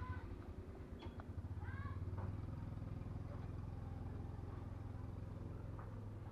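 A steady low motor hum, like a small engine running, with a few short high gliding calls in the first two seconds.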